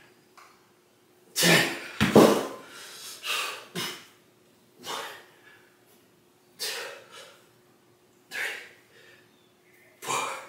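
A man breathing hard through a set of single-arm kettlebell rows: about nine sharp, forceful exhales and snorts, a second or two apart, the strongest about two seconds in. A faint steady hum runs underneath.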